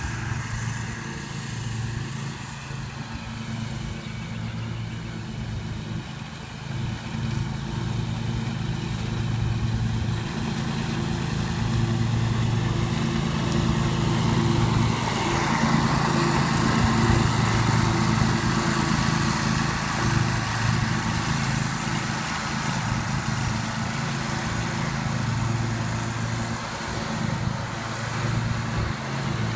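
Scag Tiger Cat II zero-turn mower's engine running steadily while mowing grass, growing louder through the middle as it comes nearer, then easing off.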